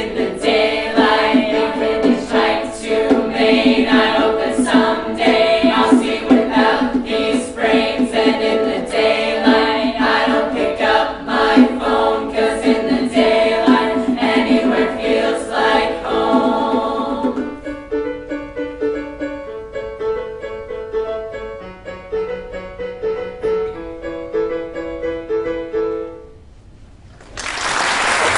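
A high school glee club singing in chorus over strummed acoustic accompaniment; after about seventeen seconds the music thins to a few held notes as the song winds down. The song ends, and about a second before the end applause breaks out.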